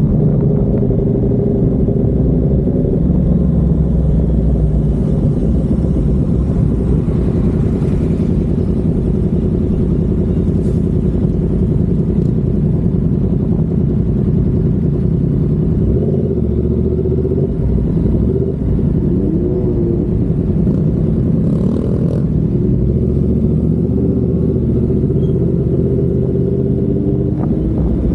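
Yamaha MT-10's 998 cc crossplane inline-four running through an SC Project carbon-titanium exhaust while riding, a steady low exhaust note whose pitch rises and falls a few times with the throttle.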